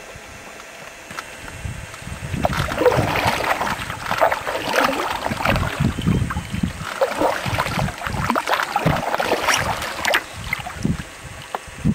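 Canoe paddles dipping and pulling through lake water in irregular splashing strokes, with wind buffeting the microphone. The sound swells about two seconds in and eases near the end.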